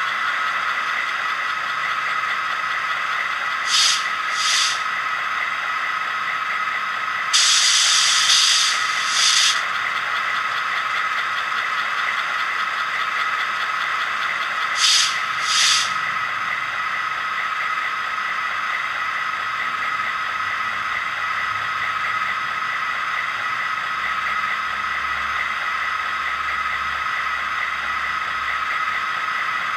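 Sound decoder in an HO-scale SD45T-2 model locomotive playing a steady diesel idle through its small speaker. Short bursts of air hiss break in: two about four seconds in, a longer one from about seven to nine and a half seconds, and two more around fifteen seconds.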